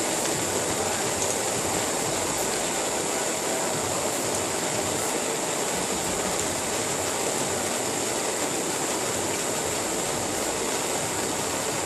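Water churning steadily through a glass dab rig as a long hit is drawn through it, with a sharp click near the end.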